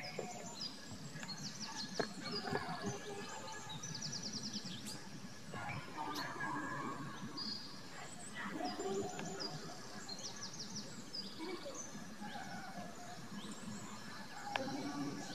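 Birds chirping and trilling in short, quickly repeated phrases, faint, over a low steady background hiss.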